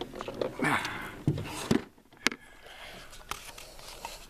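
A short stretch of muffled voice, then a handful of sharp, separate clicks and knocks from gear being handled.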